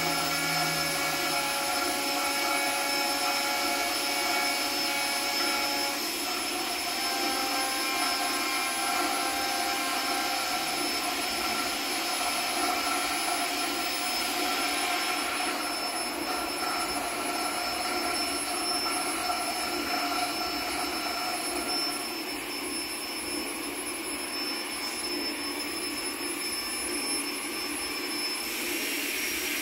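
Experimental electroacoustic drone: a dense, steady hiss with several sustained tones layered over it. The set of tones shifts a few times, with some dropping out and others coming in around six, fifteen and twenty-two seconds in.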